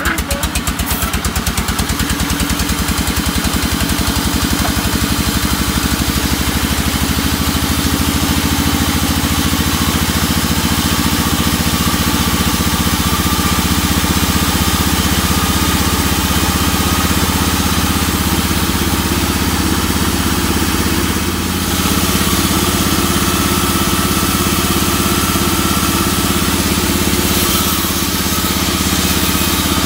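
Vertical band sawmill running steadily while it saws a teak log, a continuous mechanical drone with the noise of the blade cutting through the wood. The sound dips briefly about two-thirds of the way through.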